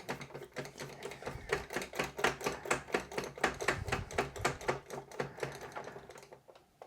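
Rapid clicking, about six clicks a second, as a screwdriver undoes the last screw holding the AMS 2 Pro's internal hub, stopping shortly before the end.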